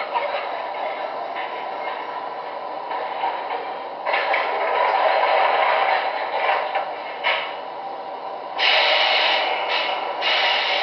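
MTH RailKing R-26 subway model train running on O-gauge track with its onboard subway sound effects. The steady mechanical running sound grows louder about four seconds in and again near the end.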